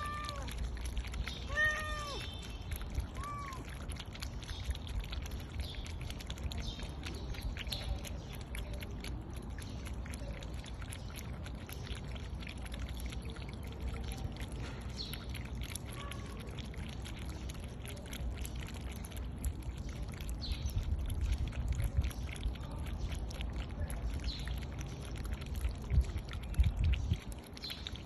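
Several cats lapping fish soup from a shallow plastic dish, a quick run of small wet clicks throughout. A cat meows a few times, short rising-and-falling calls, in the first few seconds.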